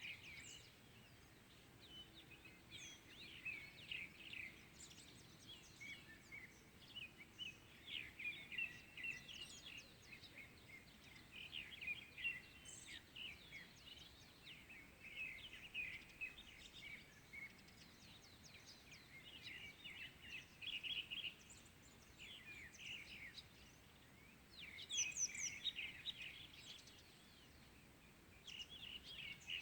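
Several small birds chirping and trilling in a continuous dawn chorus, faint against a quiet rural background, with a busier flurry of calls about 25 seconds in.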